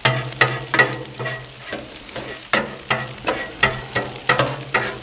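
Metal bench scraper chopping fried egg against the steel top of a Blackstone griddle: sharp clacks and scrapes, two or three a second and unevenly spaced. Under them run food sizzling and a low steady hum.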